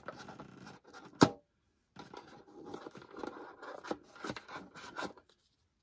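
Product packaging being handled: rustling and scraping, with one sharp click about a second in and a few lighter clicks later, dying away near the end.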